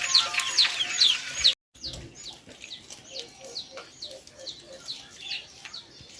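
Chicks peeping over and over: high, falling cheeps, a few a second. The sound cuts out briefly about one and a half seconds in, and the peeping then goes on more quietly.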